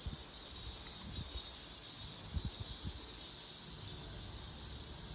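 Insects droning steadily at a high pitch, with a few soft low thumps about a second in and again around two and a half seconds in.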